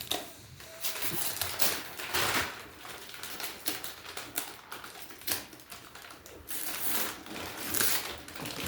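Wrapping paper being torn and crumpled as a present is opened, in irregular rustling rips.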